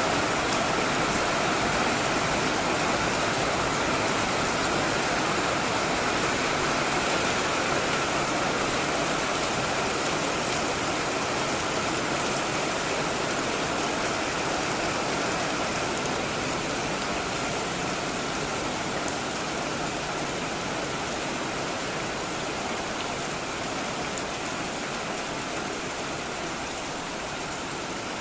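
Heavy tropical rain pouring steadily, a dense even hiss of downpour that eases slightly toward the end.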